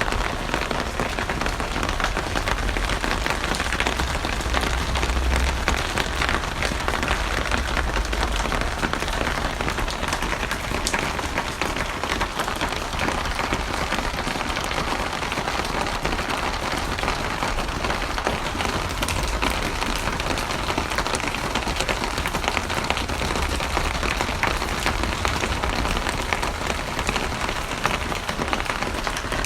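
Steady rain falling on a surface, a dense even patter of many drops with some low rumble underneath.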